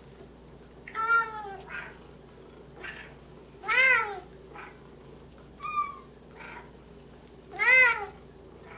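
Bengal cats meowing for cooked chicken treats: four loud, drawn-out meows that rise and fall in pitch, about two seconds apart, with softer meows between them.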